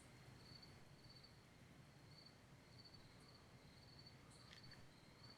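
Near silence at night: crickets chirping faintly in a slow, even rhythm over a low background hum. No thunder is heard despite the lightning.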